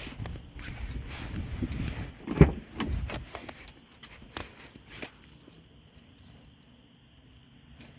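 Objects being handled: rustling and clattering, a sharp knock about two and a half seconds in, then a couple of clicks before it goes quiet.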